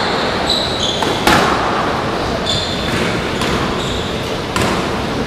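Squash rally: a few sharp knocks of the ball off the racket and the court walls, with short high squeaks of shoes on the wooden floor, over steady hall noise.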